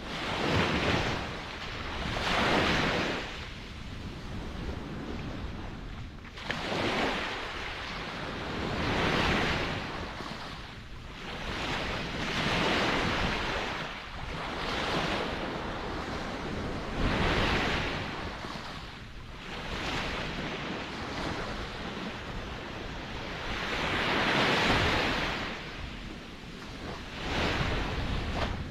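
Ocean waves breaking and washing up the shore, surging and ebbing in slow swells every few seconds over a steady low rumble of surf.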